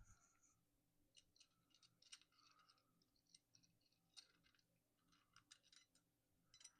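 Near silence broken by faint, scattered small clicks and light scrapes of mountain-bike handlebar and stem parts being handled, with a few clustered together about two seconds in and again near the end.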